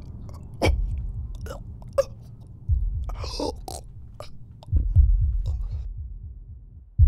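Horror-film sound design: a deep low boom about every two seconds, each one rumbling and then fading. Sharp clicks fall between the booms, and there is one longer noisy sound about three seconds in.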